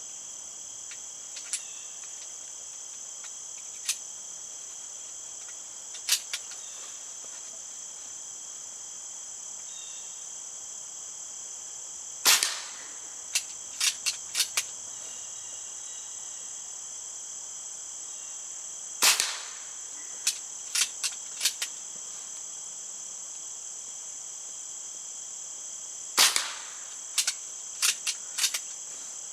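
Diana Bandit .22 PCP air pistol firing three shots, about seven seconds apart, each followed by a few quick mechanical clicks as the action is worked for the next pellet. Steady high insect chirring runs underneath.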